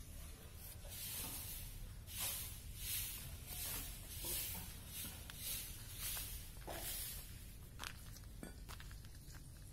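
Goat hide being pulled away from the carcass by hand: a run of short tearing, ripping sounds, about one every half second to second, as the skin is tugged down in repeated pulls, with a sharp click near the end.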